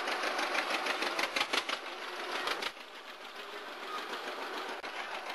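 Vintage John Deere two-cylinder tractor engine running with a rapid, even beat. It cuts off suddenly about two and a half seconds in, leaving a quieter background.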